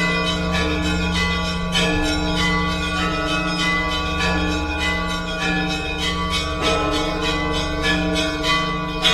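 Orthodox church bells ringing together: small high bells struck in quick succession, several strokes a second, over the long steady hum of large low bells.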